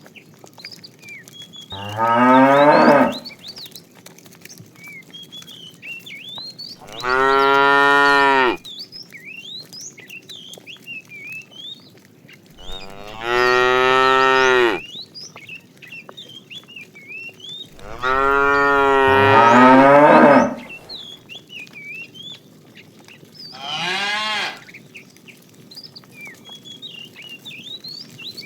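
Cattle mooing: five separate long moos, each a second or two long, the one about 18 seconds in the longest and loudest and the last, near the end, shorter and fainter.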